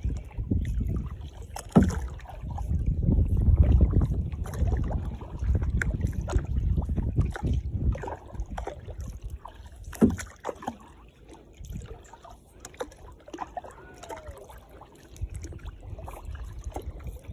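Kayak being paddled: paddle strokes dipping and sloshing in the water, with sharp knocks about two seconds in and about ten seconds in, over a low rumble that is loudest in the first half.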